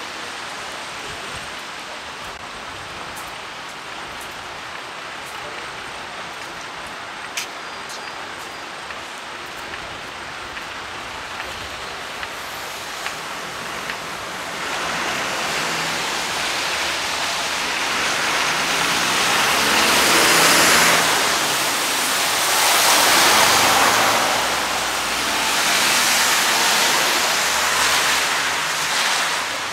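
Heavy rain falling with a steady hiss, with a few sharp ticks in the first half. From about halfway the rushing grows louder in several swells.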